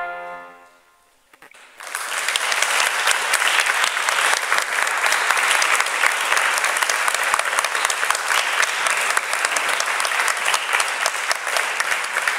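The final held trumpet note with piano dies away, and after about a second of hush an audience starts applauding and keeps clapping steadily.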